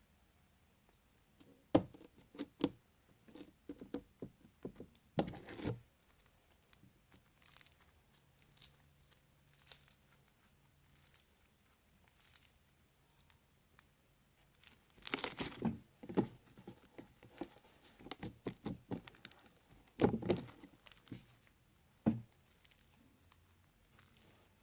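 Crunchy slime made with Tide and Elmer's Magic Liquid being handled: scattered crackles and clicks, with louder bursts of crackling about 5, 15 and 20 seconds in.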